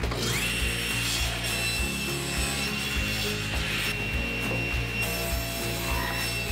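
Table saw starting up, its motor whine rising in the first half-second and settling to a steady pitch, then ripping 3/4-inch plywood into slats.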